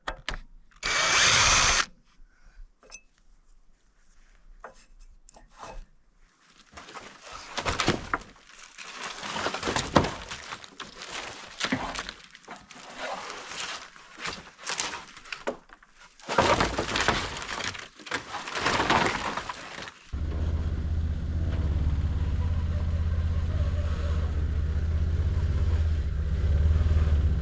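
Irregular knocking and clattering work noises for about twenty seconds, then from about twenty seconds in a side-by-side utility vehicle's engine running steadily.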